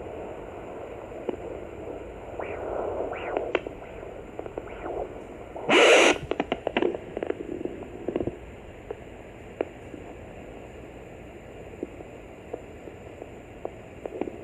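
Sonoline B fetal doppler speaker giving steady static hiss with no clear heartbeat, a few soft whooshing swells early on, and a loud scraping crackle about six seconds in followed by scattered clicks.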